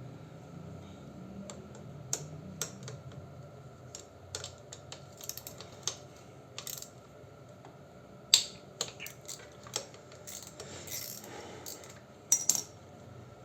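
Scattered metal clinks and ticks of a hand tool working the screws of a motorcycle engine side cover. The sharpest clinks come about eight seconds in and twice close together near the end.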